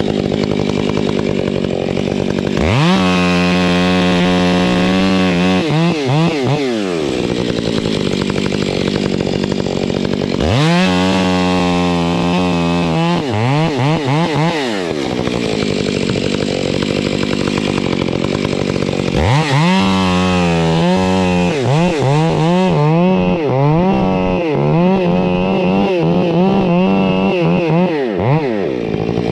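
Chainsaw revved up to full speed three times, each burst rising quickly, holding and then falling away. During the last and longest burst the pitch dips and recovers again and again as the saw comes under load, with a steady running noise between the bursts.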